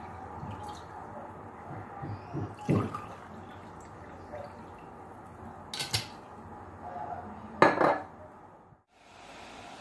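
Glass bottle and glassware clinking and knocking on a kitchen counter: a few light knocks in the first three seconds, a sharp clink about six seconds in, and the loudest knock near the end as the bottle is set down.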